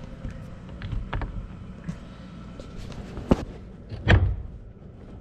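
Steering wheel being fitted onto its quick-release hub: a few light taps, then a sharp click a little past three seconds in and a heavier thunk about a second later.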